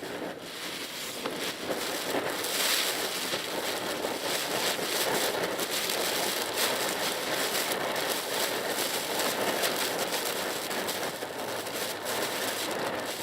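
Driving through heavy typhoon rain in a Mitsubishi Pajero Mini: a steady hiss of rain and wet-road noise with a fine crackle of drops. It swells about two seconds in and eases a little near the end.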